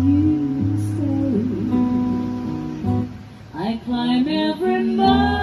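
Live acoustic duo: an acoustic guitar strummed and picked under a woman's singing voice, with a short lull a little past the middle.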